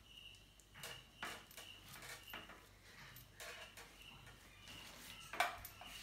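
Small handling noises: light plastic clicks and rubs as a plastic weatherproof cover is worked onto the F connector of a coaxial antenna cable, with a sharper knock about five and a half seconds in.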